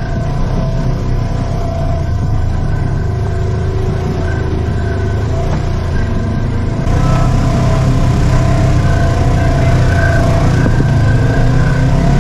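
Polaris RZR side-by-side's engine running under way: a steady drone with a couple of steady higher tones over it, growing louder about seven seconds in.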